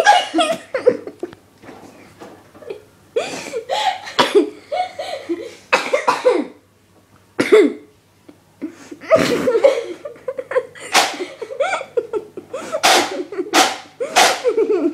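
People laughing hard in repeated bursts, mixed with coughing.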